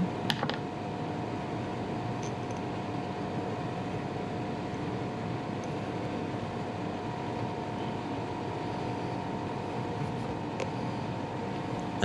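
Steady room hum of a running fan: two constant tones over a soft even hiss, with a faint click or two.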